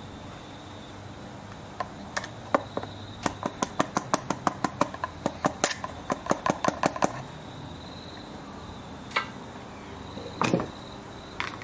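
Rear lawnmower wheel turned by hand on a rod through its hub, giving a fast, even run of sharp clicks, about five a second, for several seconds. A few separate knocks follow near the end as the wheel is handled and taken off.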